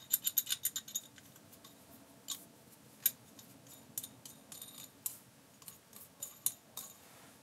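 Steel hex nut spun on a brass threaded rod, clicking and rattling against the threads: a quick run of about ten clicks in the first second, then scattered single clicks.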